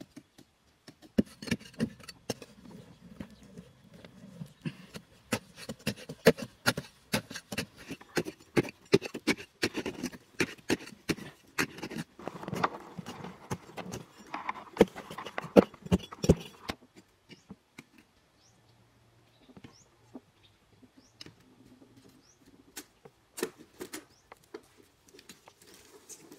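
Wooden digging sticks jabbing and scraping into hard, dry soil: a quick, irregular run of thuds and scratchy knocks that thins to a few scattered taps after about sixteen seconds.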